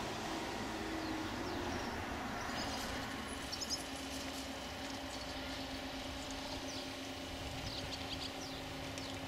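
Level-crossing barrier drives humming with a steady low tone, starting a few seconds in as the barrier booms lower, over outdoor background noise. Birds chirp a few times in the middle and near the end.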